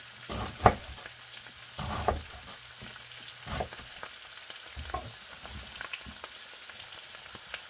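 Kitchen knife chopping cabbage on a wooden cutting board, about six irregular chops, the loudest under a second in, over a steady sizzle of chopped cabbage frying in butter and olive oil in a pan.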